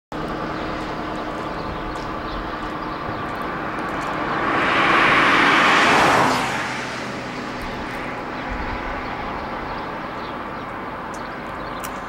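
Steady street traffic running, with one vehicle passing close by about halfway through, its rushing sound building, peaking and then fading away.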